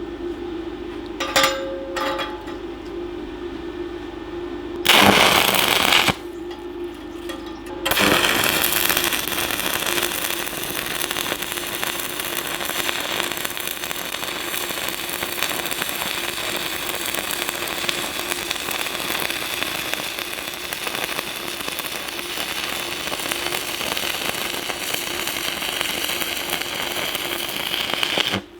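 Stick (MMA) welding arc from a Decapower Ecoarc 160 inverter welder. A short crackling burst comes about five seconds in. The arc is struck again about eight seconds in, crackles steadily for about twenty seconds, then cuts off suddenly near the end. A steady hum runs underneath.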